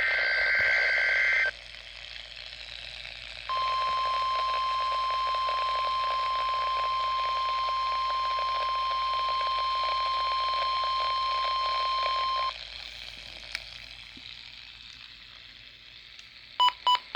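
NOAA Weather Radio test signal on a weather radio receiver: the end of a SAME digital header burst screeching for about a second and a half, then radio hiss, then the steady 1050 Hz warning alarm tone held for about nine seconds. Static follows, and near the end come three short beeps.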